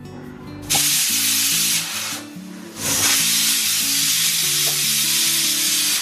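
Food processor running with its grating disc, shredding beetroot: a loud, even rushing noise in two runs with a short break about two seconds in, cutting off suddenly at the end.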